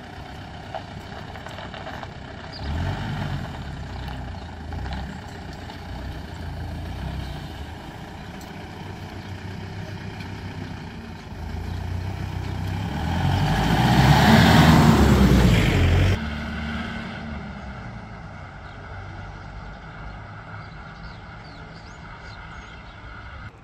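Road traffic passing, engines and tyres, with one vehicle driving close by about two-thirds of the way through. It is loudest then, its engine note rising and falling, before the sound cuts off suddenly.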